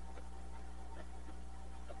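A steady low hum with faint steady tones above it, and scattered light clicks and ticks, like small objects being handled.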